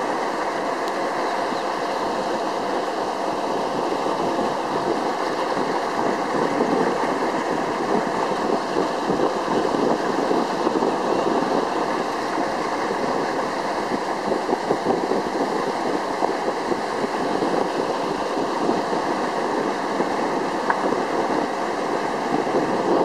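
Small motorboat under way on a calm river: a steady engine drone mixed with the rush of water along the hull.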